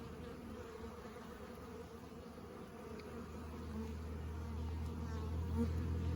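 Honeybees buzzing in a dense, steady hum around an opened hive during a frame inspection. A lower hum swells over the second half.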